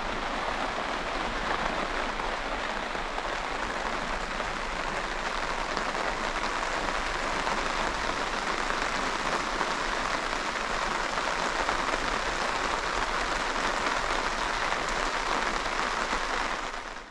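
Steady rain falling, heard from beneath a fabric awning: an even, unbroken hiss.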